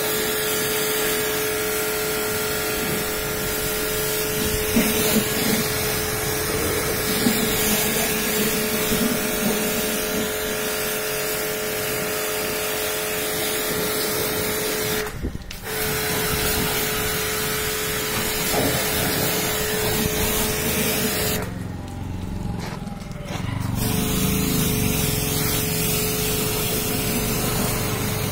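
Pressure washer running, its lance spraying a hissing jet of water onto a vehicle's body over a steady machine hum. The spray and hum cut out briefly about halfway through, and again for about two seconds near three-quarters of the way, then resume.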